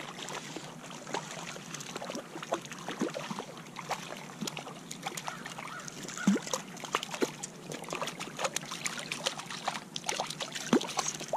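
Water splashing and trickling with many irregular light clicks and taps, as a small hooked brown trout is played and brought in at the surface on a fly rod.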